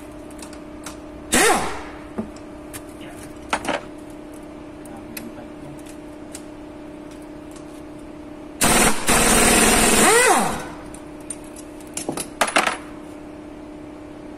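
Metal knocks and clinks of tools and parts at the camshaft gear end of a Chevrolet Aveo engine as its cover and bolts are taken off. A loud, noisy stretch of about two seconds comes two-thirds of the way in, and a steady low hum runs underneath.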